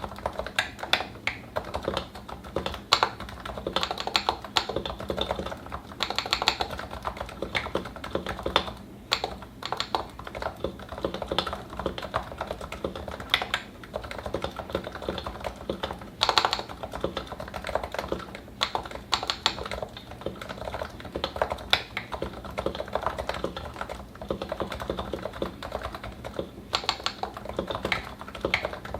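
Continuous fast typing on a Topre keyboard (Realforce 87u, 55 g electrostatic capacitive switches, lubed and Novatouch-modded), keys bottoming out in a dense, irregular patter with occasional louder strokes, likely the space bar or other larger keys.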